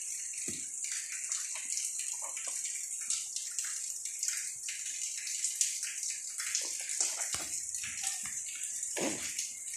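Kittens' claws scratching and scrabbling on a cardboard box: many small quick scrapes and taps over a steady hiss, with a few soft knocks near the end.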